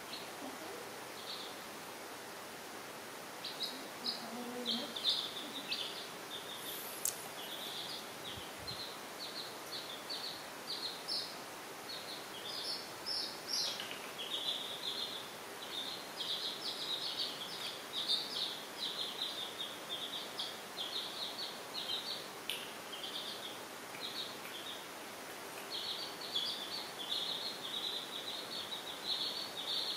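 Baby chicks peeping: short, high peeps, several a second, sparse at first and then near-continuous from a few seconds in, over a faint steady hiss.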